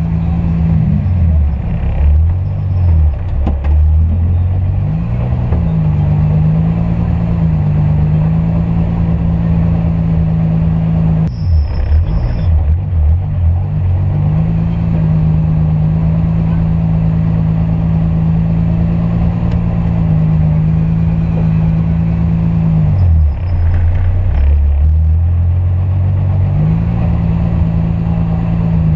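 Turbocharged VW VR6 engine heard from inside the cabin, running steadily as the car moves slowly. Three times the engine note drops lower for a few seconds and then returns.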